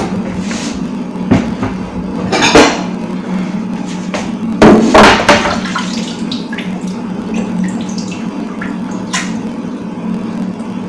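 Water running and splashing in a kitchen sink as food is washed by hand, with the loudest splashes about 2.5 and 5 seconds in and small clatters between, over a steady low hum.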